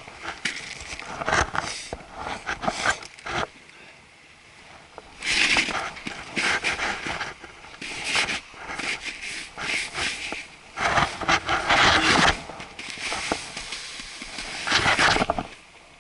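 Irregular gusts of rushing air noise on an action camera's microphone, coming in uneven bursts of up to a second or so with quieter gaps between.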